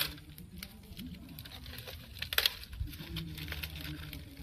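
Dry straw rustling and crinkling under the hands as it is lit in a brick stove, with scattered small ticks and crackles as the straw catches.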